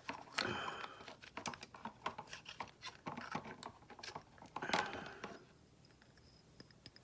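Handheld herb grinder being handled: a run of small clicks, taps and scrapes that stops about five seconds in.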